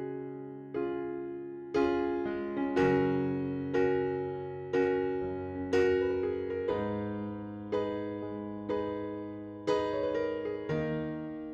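Background music: a gentle electric piano playing sustained chords, struck roughly once a second and left to fade.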